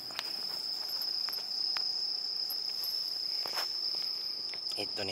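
Crickets trilling steadily: one continuous high-pitched chirr, with a few faint clicks scattered through it.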